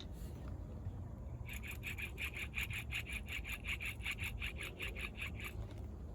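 Rapid back-and-forth scraping strokes, about five a second, running for about four seconds and then stopping.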